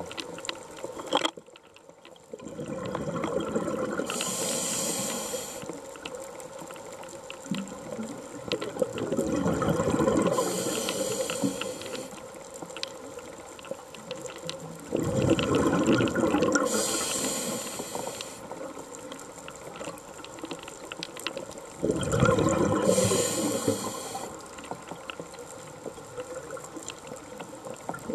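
A scuba diver breathing through a regulator, taking four breaths. Each breath is a short hissing inhalation and a louder bubbling gurgle as exhaled bubbles rise past the camera, repeating about every six seconds. Faint scattered clicks sound throughout.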